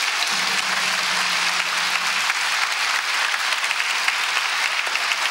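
Theatre audience applauding steadily, a dense patter of many hands clapping.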